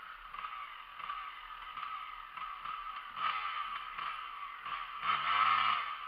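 Dirt bike engine revved up and down in repeated bursts, loudest about halfway through and near the end, its rear wheel spinning in mud as it tries to climb out of a muddy ditch.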